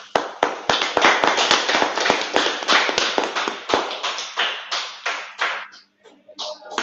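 Applause: several people clapping quickly and densely, starting suddenly, thinning out briefly about six seconds in, then picking up again.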